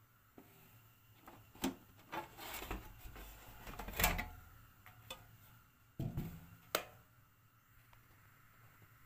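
Knocks and clatter from handling a National NV-J1 VHS video cassette recorder as its top cover is lifted off, exposing the tape mechanism. The loudest clatter comes about four seconds in, and two sharp knocks follow around six to seven seconds.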